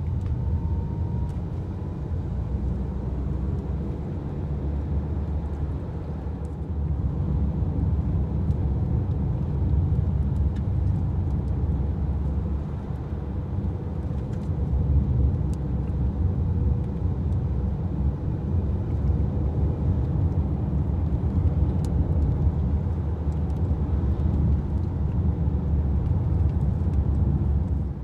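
Steady low rumble of a vehicle on the move, swelling and easing a little.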